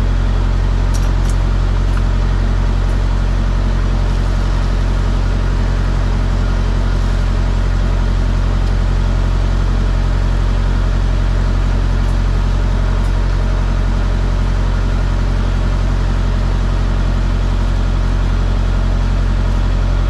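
Diesel fuel flowing from a pump nozzle into a semi truck's fuel tank, over a steady low engine hum.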